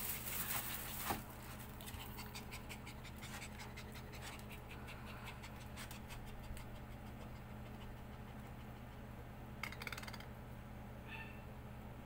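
Maltese puppy panting quickly and rhythmically, fading out after about six or seven seconds; the owner puts the panting down to nerves.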